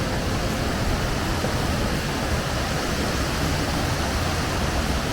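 Steady rushing of a mountain stream, a continuous even noise with a deep low rumble.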